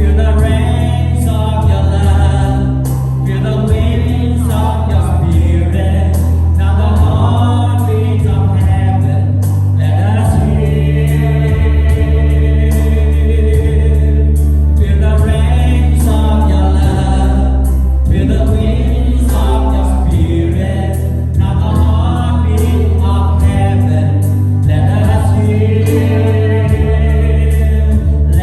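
Gospel-style worship song: a choir singing over sustained bass chords.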